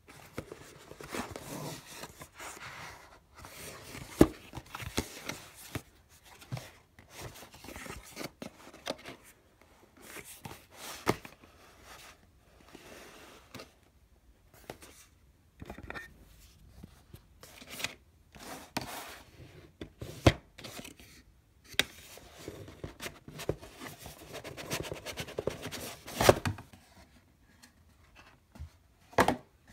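Cardboard tablet box being opened by hand: irregular rustling and scraping of the card flaps and lid, broken by quiet pauses. Scattered sharp clicks and knocks, the loudest about four seconds in, again about twenty seconds in, and near the end.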